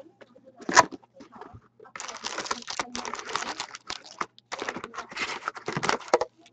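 A box of wrapped hockey card packs being opened by hand: a sharp click about a second in, then about four seconds of crinkling as the shiny card packs are pulled out of the cardboard box.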